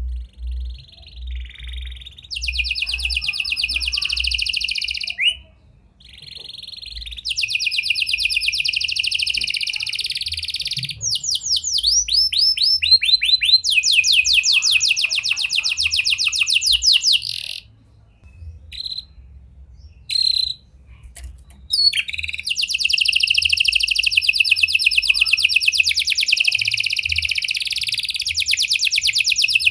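A domestic canary singing long runs of very fast trills, with a run of sweeping notes partway through and a break of a few seconds past the middle.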